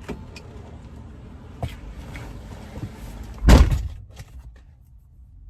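A car door shutting with a single heavy thud about three and a half seconds in, with a few small clicks and knocks and a low steady rumble around it.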